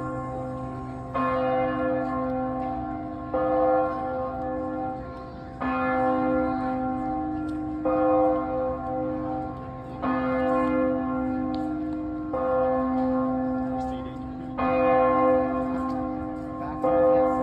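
Church bell ringing in a slow, even peal, struck about every two seconds. Each stroke hangs on and rings under the next, eight strokes in all.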